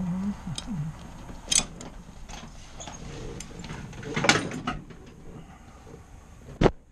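Handling noises in a light aircraft's cockpit with the engine off: a few knocks and clicks, with a sharp one about a second and a half in, a cluster of them around four seconds, and another sharp one near the end, over faint rustling.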